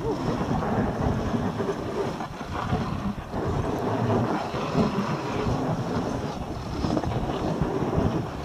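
Dog sled running along a snowy trail at about 10 km/h: a continuous rushing, scraping hiss from the runners over the snow, mixed with wind rumbling on the microphone.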